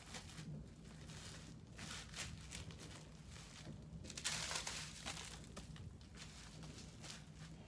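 Plastic cling wrap crinkling and rustling in irregular bursts as raw steaks are rolled up in it, with the loudest crinkle about four seconds in.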